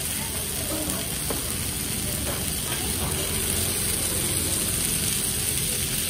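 Potato masala and a dosa sizzling on a hot flat iron griddle, over a steady low rumble.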